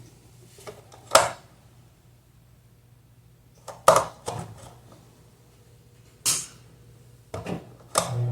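Several separate sharp clicks and knocks from handling an electric fan's motor and parts. Right at the end the fan motor switches on and starts a loud steady hum.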